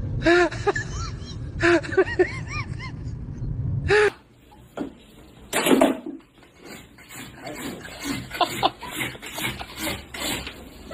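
Several short bursts of human laughter over a low, steady engine hum. About four seconds in the hum stops, and quieter rustling and knocking follow, with one brief louder rustle near the middle.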